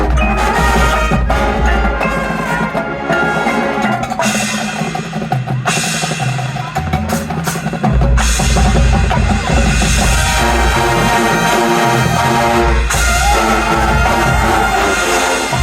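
Marching band playing: brass over drumline percussion, with drum rolls and bass drum hits, the low drums getting heavier about eight seconds in.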